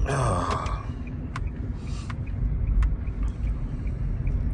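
Steady low rumble of a car heard from inside the cabin, with a short noisy burst at the start and a few sharp clicks about a second and a half in.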